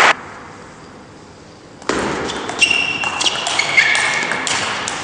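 Table tennis rally starting about two seconds in: the celluloid ball ticks sharply off the paddles and table, with a few short high squeaks from the players' shoes on the hall floor.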